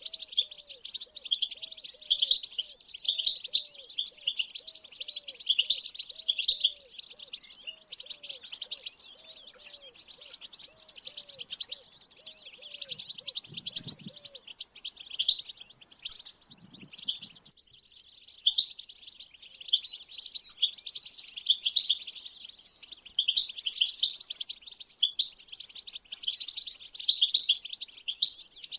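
European goldfinch song: a fast, continuous twittering of high chirps and trills. Through the first half a low note repeats about twice a second beneath it.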